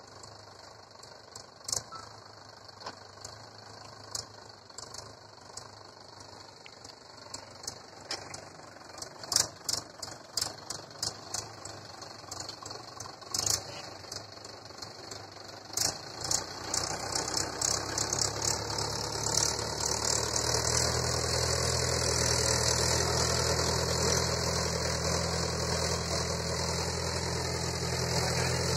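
Tractor engine running as it pulls a two-bottom reversible mouldboard plough through the soil, with sharp clicks and knocks scattered through the first half. The engine grows louder from about halfway in and stays loud to the end.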